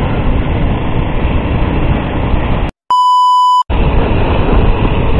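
Motorcycle riding noise: wind rushing over the microphone with the engine and road noise underneath. Nearly three seconds in, the sound drops out and a steady beep plays for under a second, then the riding noise resumes.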